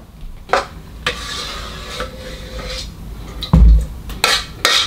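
A metal spoon clinking and scraping against a glass jar and cookware while overfilled jars of fruit compote are adjusted. There is a loud low thump about three and a half seconds in, and more clinks near the end.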